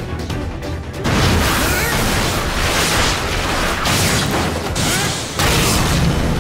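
Dense run of animated sword-fight sound effects over dramatic music: repeated whooshing blade slashes and cutting impacts, starting about a second in, with a short lull shortly before the end.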